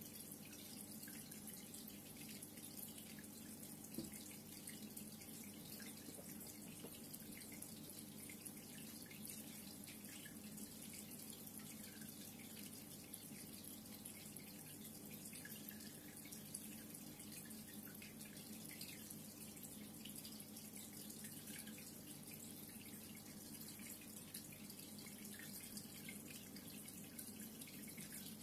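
Reef aquarium's water circulation: a faint, steady trickle and dripping of moving water, with a low steady hum beneath and a single louder tick about four seconds in.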